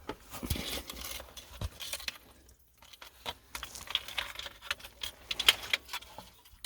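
Small stones and gravel clinking, rattling and scraping in irregular clicks as they are moved by hand among creek-bed rocks, with a brief pause a little before the middle.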